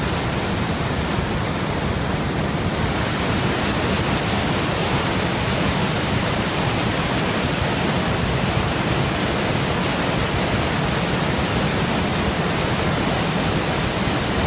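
Large waterfall: a massive volume of water crashing and rushing close by, a steady, dense roar of white water with strong low rumble.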